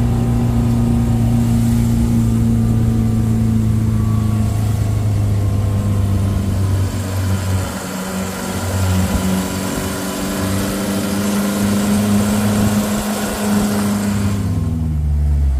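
Tour jeep's engine running while the jeep drives along, with wind and road noise. Its pitch steps down a few seconds in, eases off around the middle, then falls away in steps near the end as the jeep slows.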